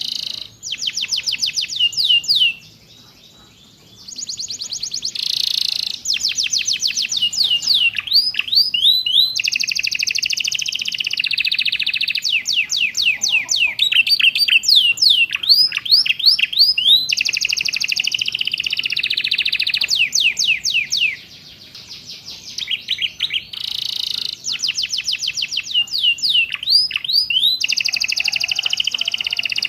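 Domestic canary singing a fast, varied song of rapid trills and repeated sweeping whistles, with imitated ciblek and prenjak phrases mixed in. It pauses briefly about three seconds in and again about two-thirds of the way through.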